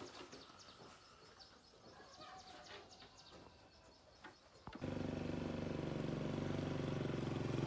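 Faint birds chirping for the first few seconds, then, about five seconds in, a small motorcycle engine starts sounding loud and close and runs steadily.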